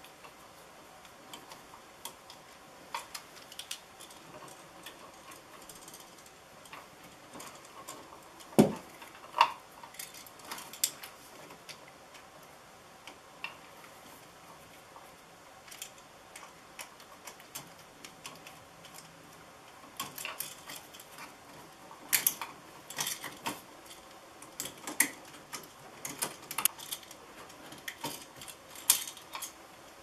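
Screwdriver clicking and scraping on a wall switch's screws while the switch and its wires are handled and pulled from the wall box: scattered light clicks and small metal taps, busier in the second half, with one heavier knock about eight and a half seconds in.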